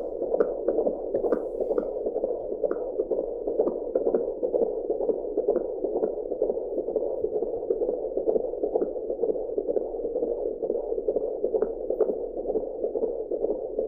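Fetal heartbeat picked up by an AngelSounds home fetal Doppler: a steady rhythm of whooshing pulses, two to three a second, over a constant hiss.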